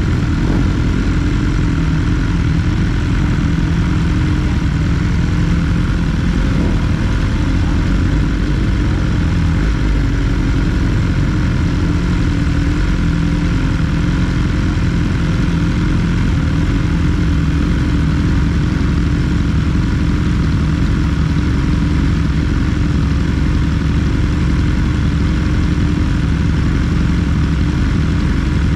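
BMW S 1000 R's inline-four engine running at a steady, unchanging pitch while riding, with a constant rush of wind noise over it.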